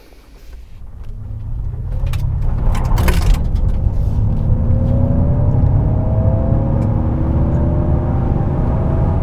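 2022 Ford F-150 Lightning electric pickup accelerating from a stop, heard from inside the cab: road and tyre rumble build over the first two seconds and then hold steady, with several faint tones rising slowly in pitch as speed grows.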